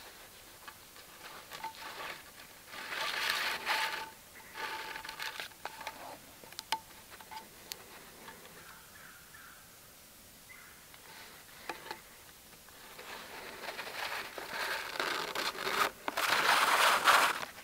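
Cord rubbing and scraping over bark as it is wrapped around a log and pulled tight in a lashing. It comes in irregular bursts of rustling, the longest and loudest near the end, with a few small clicks between.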